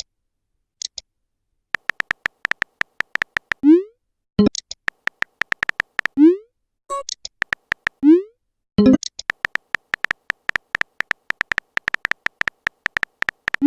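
Chat-app sound effects: runs of quick, evenly spaced typing clicks, each a short tick with a faint tone. Each run ends in a short rising 'bloop' as a message is sent, about four times, with a few brief chimes in between.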